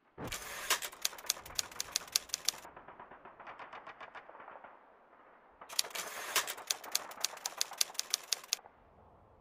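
Typewriter keys clacking in two fast runs of keystrokes, with a softer run of clicks between them.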